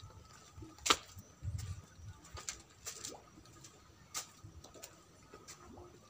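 Footsteps on a concrete pier walkway: irregular light clicks and soft knocks, the sharpest about a second in, over a faint steady hum.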